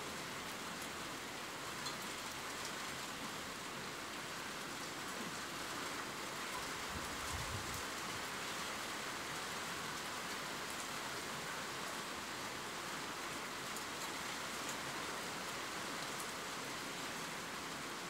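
Steady rain falling, a constant hiss with scattered faint drop ticks, and a brief low rumble about seven seconds in.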